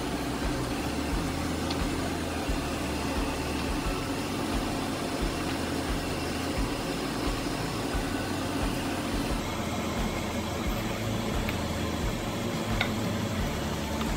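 Steady fan-like whir of a running appliance, with a few faint clicks of a serving ladle and spoon against plastic meal-prep containers.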